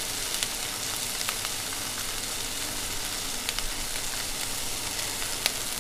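Boneless chicken strips frying in a little oil in a pan: a steady sizzle with a few small crackles.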